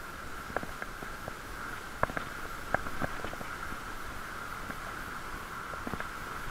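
Bicycle rolling along a street: a steady whir, with scattered sharp clicks and rattles as it goes over bumps.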